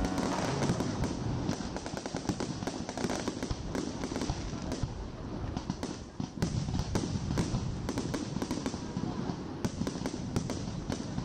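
Fireworks display: aerial shells bursting in quick succession, a dense run of bangs and pops with crackling between them, easing briefly about six seconds in.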